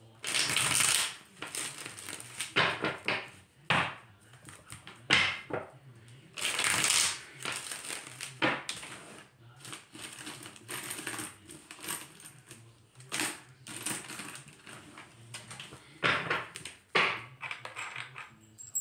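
A tarot deck being shuffled by hand: irregular bursts of cards rustling and clacking together.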